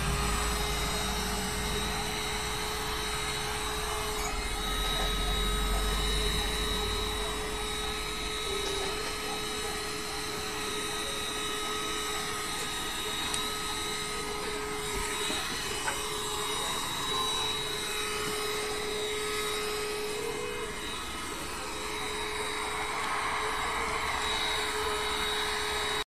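Cordless handheld mini vacuum cleaner running steadily: a constant high motor whine over an airy hiss.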